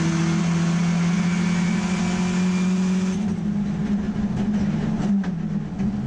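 Mazda RX3 race car's engine running at high revs under load, heard inside the cabin. About three seconds in the throttle comes off: the sound drops suddenly and turns uneven, with a few crackles.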